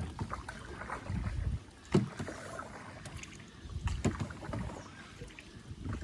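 Double-bladed kayak paddle dipping and pulling through calm water, with a sudden splash-stroke about every two seconds and a low wash of water and light wind between.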